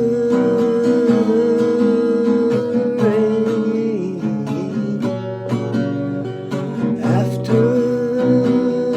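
Acoustic guitar strummed steadily under a long held wordless sung note that slides down about halfway through and comes back up near the end.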